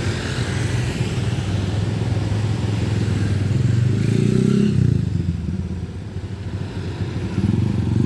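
Road traffic passing close by: the low engine rumble of a bus and motorbikes, swelling as vehicles go past about four to five seconds in and again near the end.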